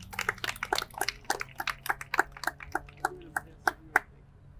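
A small audience clapping sparsely, a few pairs of hands heard as separate claps, about four or five a second, dying out just before four seconds in.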